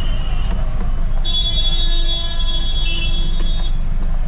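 Truck running in slow city traffic, heard from inside the cab as a steady low engine rumble. About a second in, a high-pitched steady electronic tone starts and holds for about two and a half seconds before cutting off.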